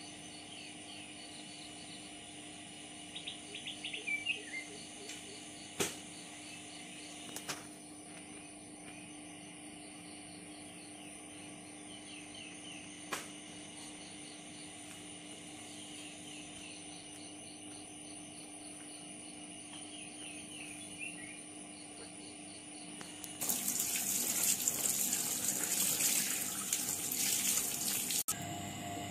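Birds chirping in short repeated series over a faint steady hum, with a few sharp clicks. About 23 seconds in, water starts running and splashing over a banana leaf being rinsed, then stops abruptly near the end.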